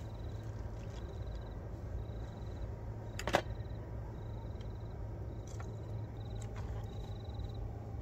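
Insects chirping in short, high, pulsed trills repeated about once a second, over a low steady rumble. A single sharp click or knock comes about three seconds in.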